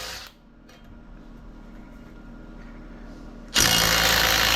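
Impact gun running in a burst of about a second and a half, starting about three and a half seconds in, as it tightens a nut on the anchor's shank-to-fluke bolt; the end of an earlier burst cuts off right at the start.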